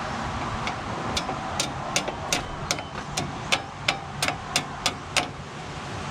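About a dozen light hammer taps on a steel pin in a John Deere skidder's winch, roughly three a second, each with a short metallic ring, to drive the pin out.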